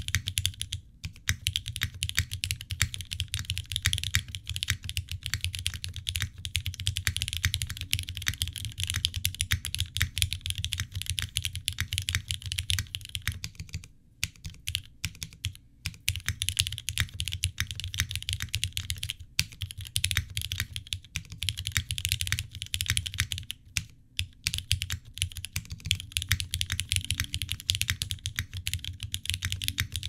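Continuous typing on a cruelworld CW88 mechanical keyboard with lubed Cherry MX Black linear switches, a polycarbonate plate, gasket mounting and GMK keycaps: a dense, steady stream of keystrokes. The typing breaks off briefly about halfway through and again about three quarters of the way in.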